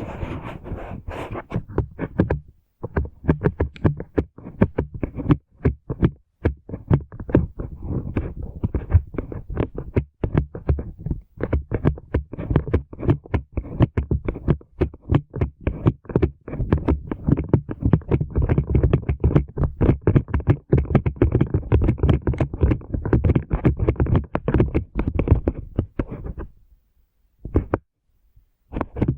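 Brush rubbed in rapid short strokes over the microphone, one stroke after another with no steady rhythm, pausing briefly about two and a half seconds in and again near the end.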